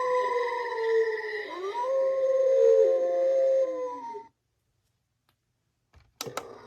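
A Halloween thundering strobe light's small speaker playing a recorded howl, a long pitched sound that wavers and slides in pitch and cuts off suddenly about four seconds in. Two sharp clicks follow near the end.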